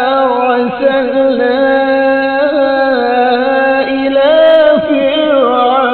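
A man chanting Quran recitation in the melodic tajweed style. He holds long sustained notes and winds the pitch up and down in ornamented turns, with no break.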